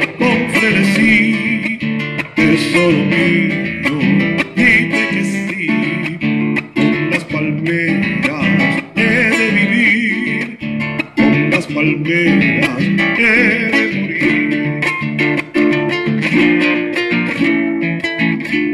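Solo classical guitar played with the fingers: an unbroken instrumental passage of plucked notes and chords.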